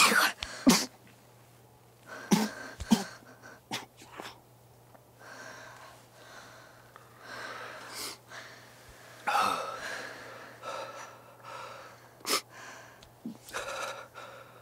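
A man's stifled breathing: a series of short, muffled bursts of breath, the loudest at the very start, forced out through pressed lips and then through a hand clamped over his mouth as he holds back a sneeze.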